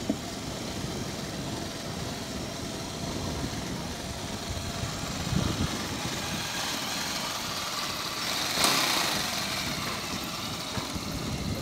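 Motorcycle engine running steadily as it rides along at low speed, with wind and road noise; a short, louder rush of noise about eight and a half seconds in.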